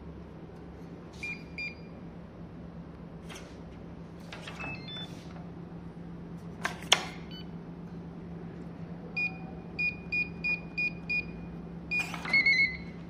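Keypad of a dormakaba digital glass-door lock beeping as keys are pressed: two short beeps, a few knocks and a sharp click about seven seconds in, then six quick even key beeps and a slightly lower closing tone after a click near the end.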